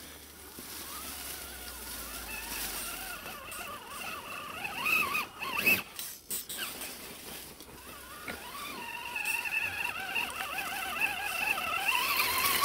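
Electric RC crawler truck's motor and gears whining, the pitch wavering up and down with the throttle, growing louder as it approaches over leaf litter. A couple of sharp knocks come about five to six seconds in.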